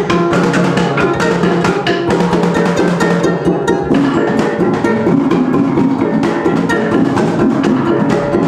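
Dayak gong-and-drum ensemble playing dance music: hand-held gongs ringing on steady pitches under a quick, even pattern of strikes.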